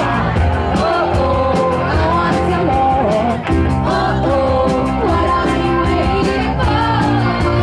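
Live rock band playing: electric guitar and bass over drums, with cymbals hit in a steady fast beat and a wavering melody line on top.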